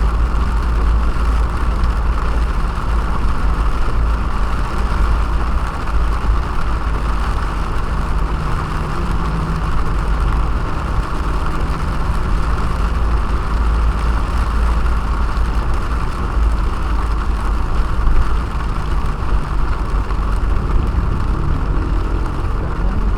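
Car driving in heavy rain, heard from inside the cabin: a steady low rumble of engine and road with a constant hiss of rain and wet tyres over it.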